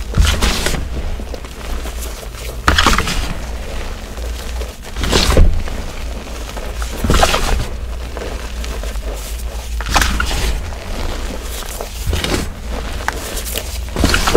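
Hands squeezing and crushing soft gym chalk in a container: a crunch of crumbling chalk about every two seconds, over a steady low rumble.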